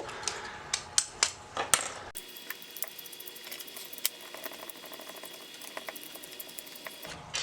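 Small metal clicks and taps of hand tools on metal parts while the motor's mounting bolts are undone, a few sharp clicks at first and then a quick run of light ticks.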